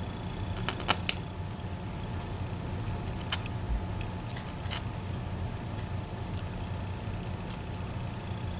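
Scattered light clicks and taps of the small metal parts of an EVVA ICS lock cylinder being handled during disassembly. A quick cluster of three clicks comes about a second in, then single clicks every second or two, over a steady low hum.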